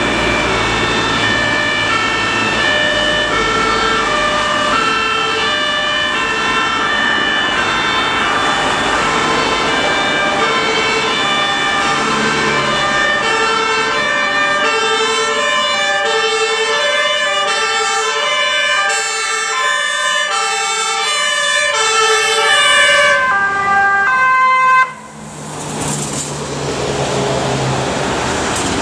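Several German two-tone emergency sirens (Martinshorn) on a fire brigade convoy sound together, each stepping between a high and a low note, overlapping out of step, over the low rumble of the vehicles' engines. About 25 seconds in the sirens cut off abruptly, leaving engine noise as a vehicle drives past.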